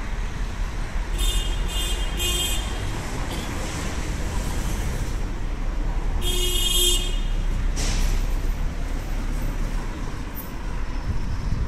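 Busy city street traffic: a steady low rumble of cars. Car horns toot over it, a few short toots about a second in and one longer toot about six seconds in.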